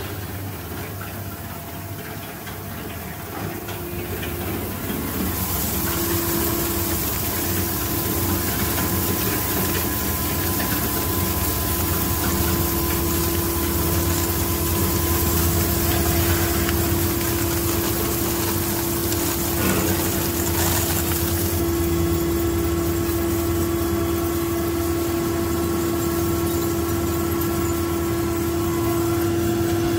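Single-shaft shredder processing aluminum can pull-tabs, its motor and gearbox running with a steady hum and a steady whine. A hiss rises over it about five seconds in and drops away about twenty-one seconds in.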